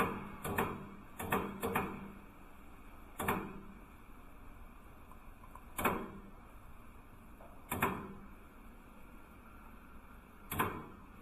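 UN65 band saw blade flash welding machine giving sharp clacks: a quick cluster at first, then single ones every two to three seconds, over a faint steady hum.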